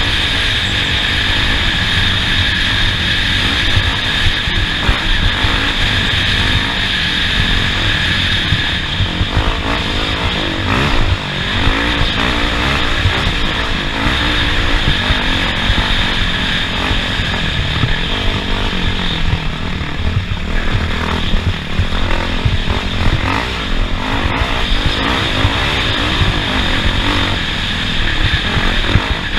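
Off-road race vehicle's engine running continuously under load, with the constant rumble and rattle of the vehicle driving over rough track.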